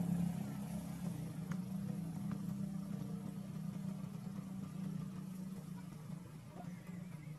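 A steady low engine hum, like a vehicle idling, growing slowly fainter.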